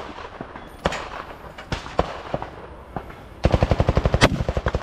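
Rifle shots fired one at a time, spaced irregularly. About three and a half seconds in, a loud, fast, even rattle of about fifteen beats a second sets in and keeps going, with another sharp shot over it.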